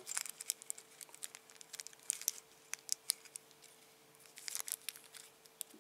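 Small clear plastic parts bag crinkling and crackling in the fingers in short irregular bursts, over a faint steady hum.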